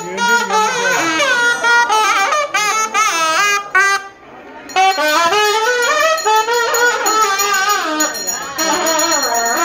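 Nadaswaram temple music: a reed pipe plays a fast, heavily ornamented melody with wavering pitch bends. It breaks off for a moment a little past the middle, then carries on.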